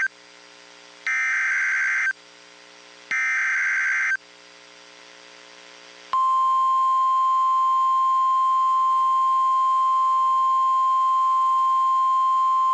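NOAA Weather Radio Emergency Alert System tornado warning broadcast: the tail of one SAME digital header burst, then two more harsh one-second data bursts about a second apart, the coded header that carries the alert type and counties. About six seconds in, the steady single-pitch 1050 Hz Weather Radio warning alarm tone starts and holds, over a faint receiver hum.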